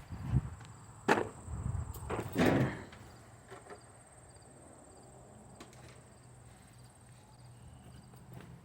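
A few sharp knocks and short scraping handling sounds in the first three seconds, then a quiet stretch with crickets chirping faintly.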